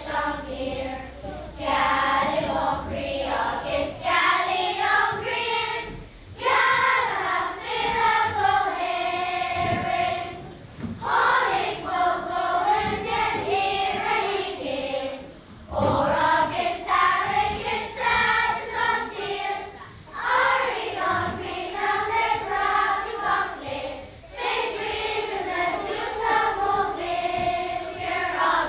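Children's school choir singing together, in phrases of about four to five seconds with short breaks between them.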